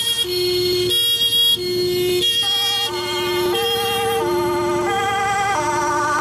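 Dutch fire engine's two-tone siren, switching evenly between a low and a high note, each held about two-thirds of a second. From about two seconds in, a higher wavering siren tone joins, stepping in time with the two notes.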